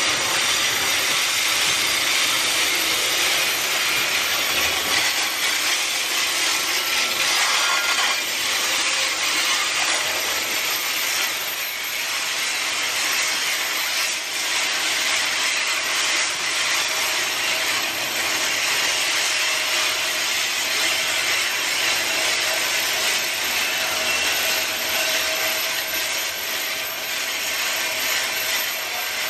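Freight train's covered hopper cars rolling past close by: a steady rush of steel wheels on rail.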